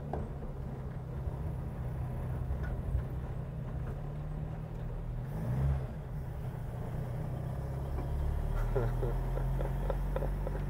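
Old Opel Kadett car running as it is driven: a steady low engine hum with a brief change in pitch about five and a half seconds in.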